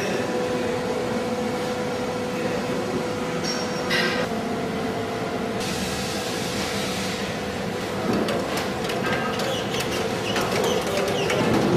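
Sani Cut automatic horizontal-blind machine running: a steady mechanical hum with a held tone, a short hiss from about five and a half to seven seconds in, and quick rapid clicks in the last few seconds.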